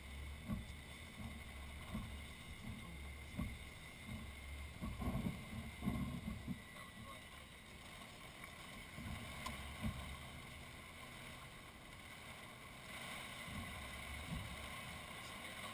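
Storm wind gusting across the microphone: a steady hiss with irregular low rumbles and buffeting thumps.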